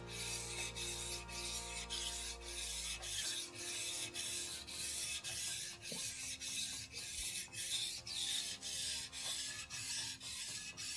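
Steel kitchen knife blade being stroked back and forth on a wet whetstone, a rhythmic rasping scrape about two strokes a second, held at an even angle and pressure.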